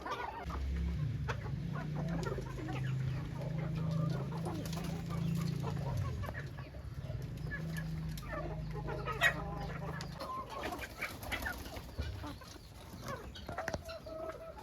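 Backyard chickens clucking, short scattered calls over a steady low hum that stops about ten seconds in, with a sharp click about nine seconds in.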